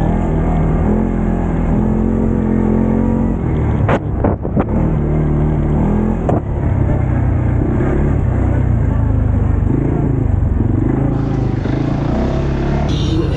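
CFMoto 500 ATV's single-cylinder engine running while riding, its speed rising and falling. A few short knocks come about four seconds in and again about six seconds in.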